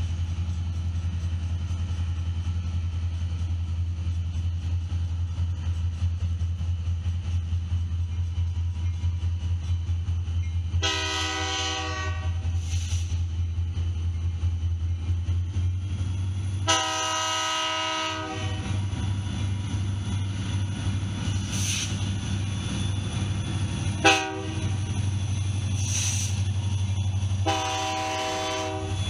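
Norfolk Southern diesel freight locomotives running past with a steady low engine throb. The lead unit sounds its air horn in the long-long-short-long grade-crossing pattern: two long blasts a third and halfway in, a short toot, then a final long blast near the end.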